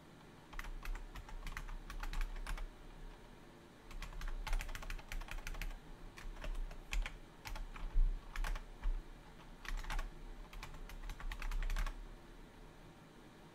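Typing on a computer keyboard: quick runs of key clicks in several bursts with short pauses between them.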